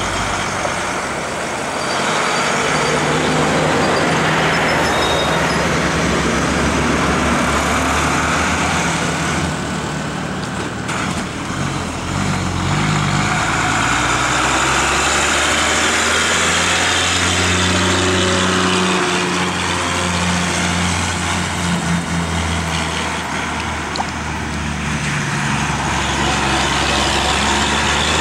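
Diesel engines of loaded goods lorries working round a hairpin bend, the engine note shifting up and down in pitch.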